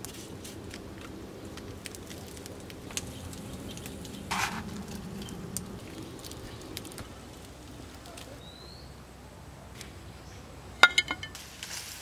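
Wood fire crackling under a clay stove, with scattered small pops and clicks while cakes cook over it. A brief hiss comes about four seconds in, and a few sharp clacks come near the end.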